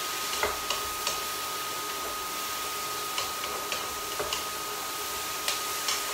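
Wooden spatula knocking against a wok as mushrooms are stirred and tossed, about ten irregular clicks, over a steady frying sizzle. A faint steady high tone runs underneath.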